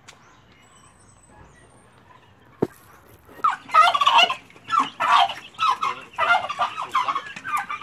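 Domestic turkeys gobbling: several quick bursts of calls in a row, starting about three and a half seconds in after a quiet stretch broken by one sharp click.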